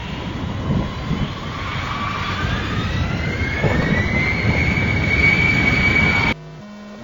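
A jet-engine-like whine over a low rumble, its pitch climbing steadily for about four seconds and then holding high. It cuts off abruptly a little after six seconds, leaving only faint, steady low notes.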